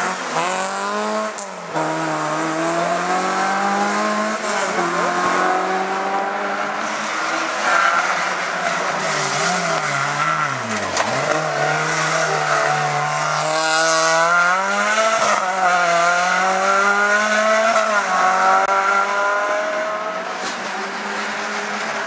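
Renault Clio race cars revving hard through a hairpin, one after another. The engine pitch climbs and drops again and again with throttle lifts and gear changes, with one deep drop about halfway through.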